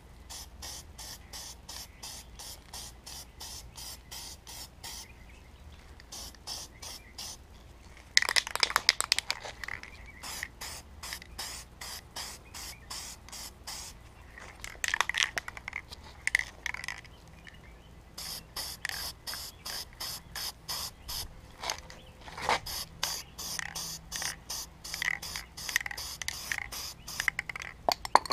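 Aerosol spray-paint can of black paint being shaken, its mixing ball rattling at about three clicks a second, with a few louder stretches of spray hiss as paint goes onto a panel.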